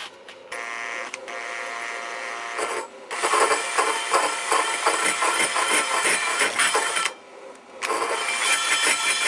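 Cordless drill driving a large hole saw into the corner of a skateboard deck. The motor runs with a steady whine for about two seconds, then the saw bites in with a louder, rough grinding cut from about three seconds in. The cut stops briefly about seven seconds in and then starts again.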